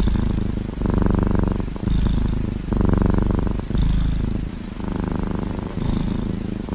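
Kitten purring loudly, the purr swelling and easing in cycles of about one a second as it breathes in and out.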